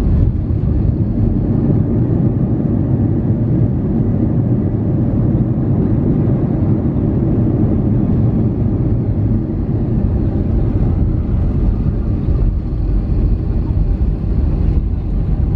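Airbus A320 cabin noise during the landing rollout: a loud, steady, deep rumble from the CFM56 engines and the landing gear rolling on the runway as the airliner slows down.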